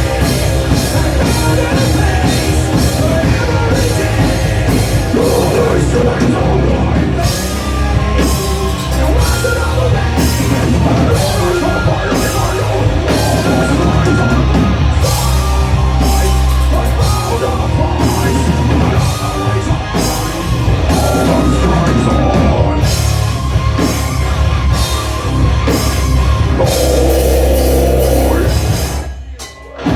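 Live heavy rock band playing loud, with a full drum kit keeping a steady beat under the guitars. The band cuts out for a brief break near the end, then comes back in.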